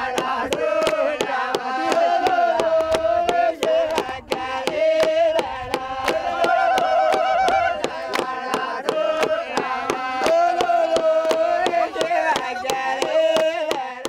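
Group of men singing a Sudanese folk song together, with steady rhythmic hand clapping.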